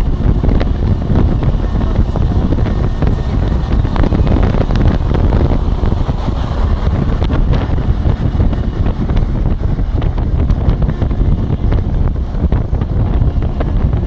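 Loud wind buffeting on a Nokia N8 phone's microphone in a moving car: a dense, unbroken low rumble.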